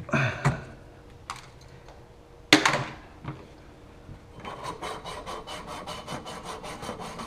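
Copper water pipe being scrubbed clean with an abrasive for soldering: a fast, even rasping of about five strokes a second that starts a little past the middle. Before it come a few knocks, the loudest a sharp clatter about two and a half seconds in.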